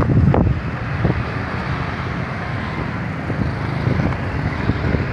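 Road traffic passing close by: motor scooters and trucks driving past, as a steady rush of engine and tyre noise that is loudest just at the start, with some wind on the microphone.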